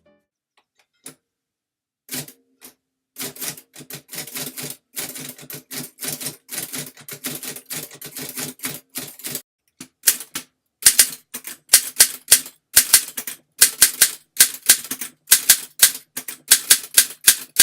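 Typing on two 1930s desktop typewriters in turn, a 1937 Continental Silenta noiseless machine and a 1938 Torpedo 6 standard machine. The first run of keystrokes is quieter, with carriage advance making much of the noise. About ten seconds in, a louder run starts, with sharp, high-pitched strikes of typeface on platen, about three a second.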